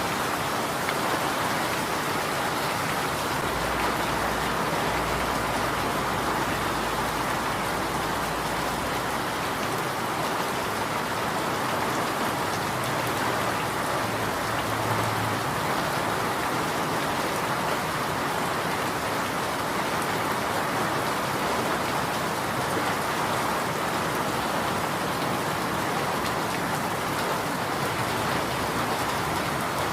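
Steady rain falling, an even wash of many drops with no let-up.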